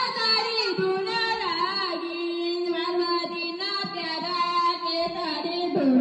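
A young woman singing a melody into a handheld wired microphone, her voice played through a small speaker, with long held notes that bend up and down in pitch.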